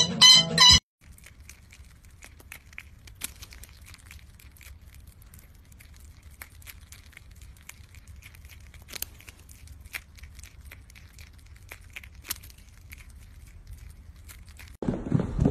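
Prairie dog chewing a slice of apple up close: scattered soft crunching clicks over a faint low hum. It opens with under a second of loud, shrill parrot calls.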